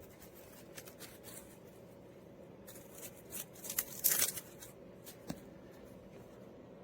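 Handling noise: faint rustling and scattered clicks, with a louder crackly rustle about four seconds in, over a low steady hum.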